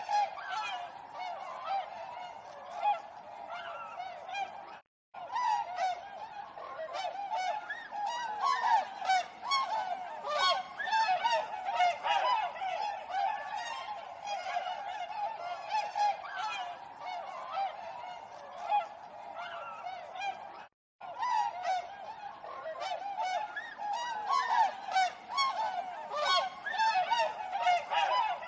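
A flock of swans honking continuously, many calls overlapping. The sound drops out completely for an instant twice, about five seconds in and again around twenty-one seconds.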